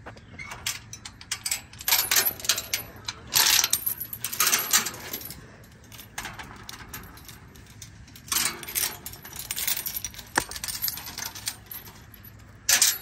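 A metal tube farm gate being opened: its chain and latch clinking and the gate and wire panel rattling in several clattery bursts with short pauses between them.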